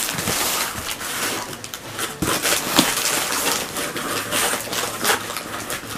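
Rustling and scattered light knocks of a cardboard shipping box and its packing being handled as its flaps are folded shut.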